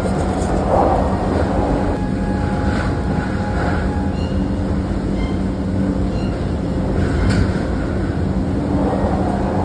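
Tornado winds blowing in a steady, loud, low rumble like a passing train.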